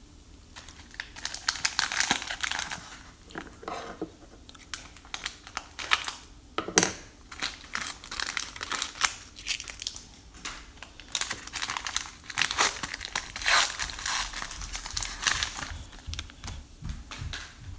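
Plastic cello wrapper of a 2021 Score football card pack being torn open and crinkled by hand. The crinkling comes in irregular bursts, with a louder crackle about seven seconds in.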